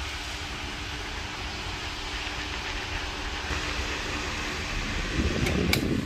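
Sanex FW-1879 wall fan running, a steady whoosh of air from the blades over a faint motor hum. Near the end a rustle and a couple of sharp clicks come from its pull-cord speed switch as the cord is tugged.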